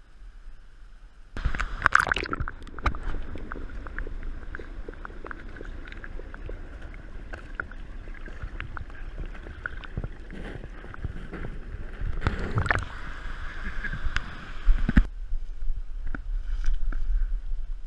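River water gurgling and sloshing around a camera held partly underwater while someone wades across a shallow stony river, with many small clicks and knocks of stones and footfalls. It starts suddenly and cuts off abruptly near the end, giving way to a low rumble.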